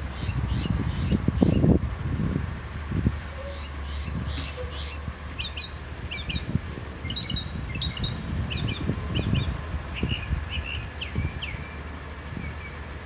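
Northern mockingbird singing: quick runs of short, high repeated notes, each phrase given several times before it switches to a new one. Low rumbling noise sits beneath the song and is loudest about a second and a half in.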